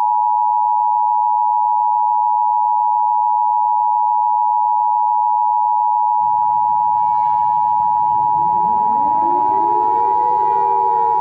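EAS attention signal, the steady two-tone alert of 853 and 960 Hz sounding together. About six seconds in, a siren starts underneath it, winding up from a low pitch to a steady high wail.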